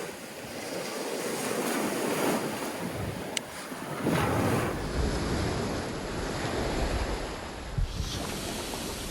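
Black Sea surf washing onto the beach, swelling and easing as waves come in, with wind rumbling on the microphone in the second half.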